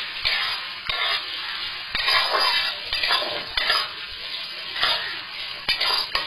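Diced carrots and cashews sizzling in hot oil in a metal kadai, stirred with a metal spatula that scrapes and clinks against the pan in repeated strokes, roughly once a second.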